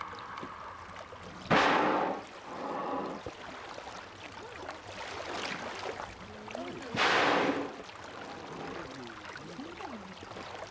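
Minke whales blowing at the surface: two sudden loud exhalations, about a second and a half in and about seven seconds in, with faint moving water between them.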